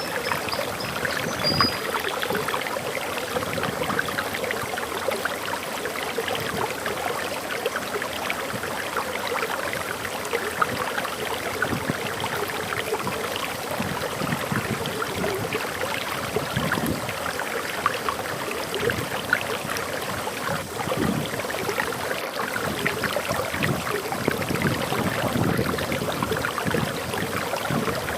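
Waterfall in a forest: water pouring and splashing steadily. A few short, high bird chirps come in the first two seconds.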